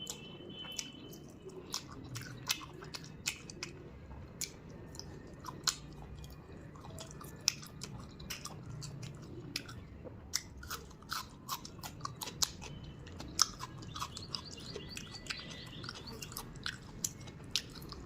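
Close-miked chewing of a rice-and-curry meal: wet mouth clicks and smacks at irregular intervals, with the odd crunch.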